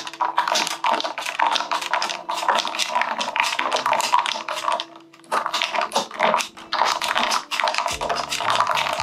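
A long metal spoon stirring ice cubes in an iced latte inside a glass mason jar: rapid, continuous clinking and rattling against the ice and glass, with a short let-up about five seconds in.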